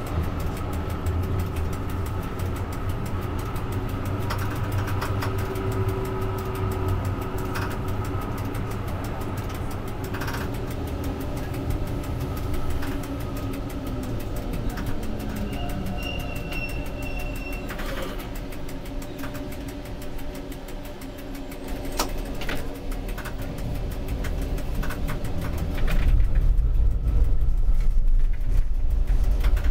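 Tram running on street track, heard from the driver's cab: a steady low rumble and motor hum with scattered clicks from the rails. Near the end the rumble gets louder as the tram rolls over a set of points.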